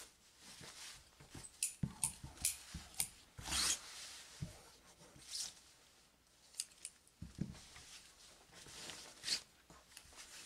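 White cotton fabric rustling as it is handled and shifted on a cutting table, with several sharp clicks of dressmaking shears being picked up and snipping, four of them in quick succession early on.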